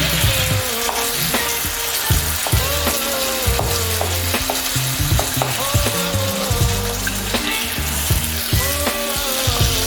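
Sausage and tomato sizzling in a frying pan, with a utensil stirring and scraping now and then. Background music with a bass line plays along.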